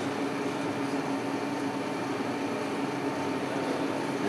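Steady hum of a Blanchard rotary surface grinder's motors running, a low drone with a faint higher tone held throughout.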